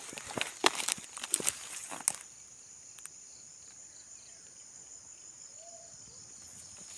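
Steady high-pitched chirring of insects such as crickets in a rural outdoor setting. A run of sharp clicks and taps, like footsteps, sounds over the first two seconds and then stops.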